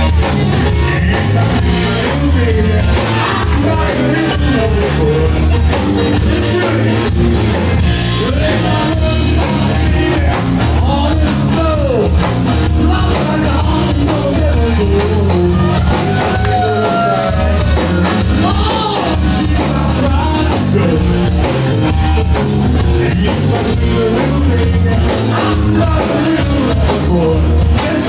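Live blues-rock band playing loudly: drum kit, bass and electric guitars over a steady beat, with a singer's voice.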